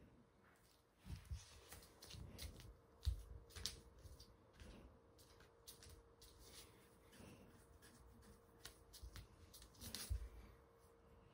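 Faint household clatter from breakfast being made: scattered clicks, taps and soft knocks, the loudest knock about three seconds in, over a faint steady hum.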